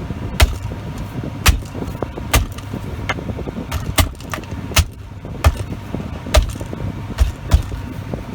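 A solid ABS plastic cup holder pad being pressed onto a truck's center console, its tabs snapping into place. About ten sharp plastic clicks, spaced unevenly over several seconds, over a steady low hum.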